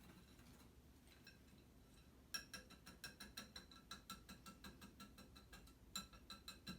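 Wire whisk clicking rapidly against the side of a bowl while beating a thick caramel mixture of butter, sugar, corn syrup and sweetened condensed milk. There are about four or five light clicks a second, starting a couple of seconds in.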